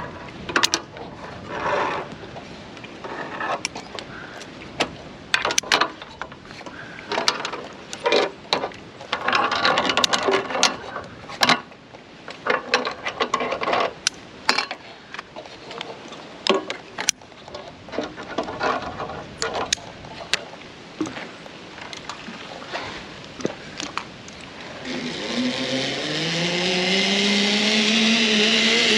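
Irregular metal clanks and knocks of hooks and gloved hands on an aluminium tree ladder and its steel safety cable during a climb. About 25 seconds in, a zip-line trolley's pulley starts whining on the steel cable, rising in pitch and then holding steady as a rider comes down the line.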